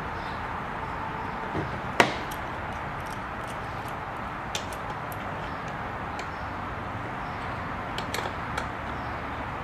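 Small metallic clicks and taps of a hand tool and lock nut on a sewing machine's motor bracket: one sharp click about two seconds in, then a few light ticks, over a steady hiss.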